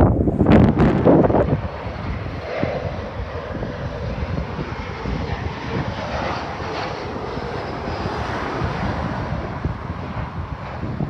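Aircraft engine noise, fairly steady, with wind buffeting the microphone in the first second or so.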